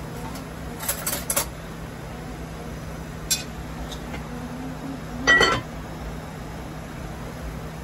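Dishes and utensils being handled on a kitchen counter: a few light clinks about a second in, a single tick near three seconds, then a louder ringing clatter of crockery or metal a little past five seconds, over a steady low hum.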